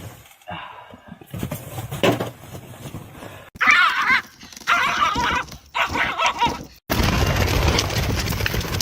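A dog whining in three high, wavering cries of about half a second each, starting about three and a half seconds in. After a sudden break near seven seconds, a steady noisy background follows.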